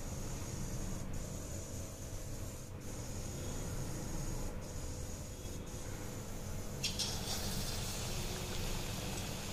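Hand stirring gram-flour batter in a steel bowl, faint over a steady low hum. About seven seconds in, hot oil in a kadhai starts sizzling with frying bubbles.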